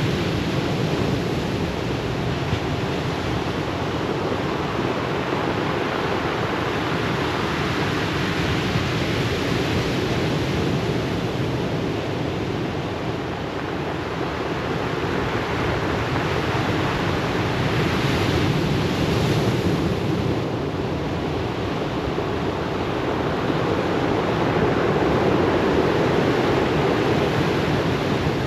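Ocean waves breaking and washing up the shore: a steady rushing surf that swells a little about two-thirds of the way through and again near the end.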